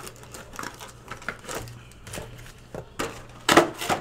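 A cardboard hobby box and its card packs being handled and opened by hand: a string of short taps, scrapes and crinkles, with a louder burst about three and a half seconds in.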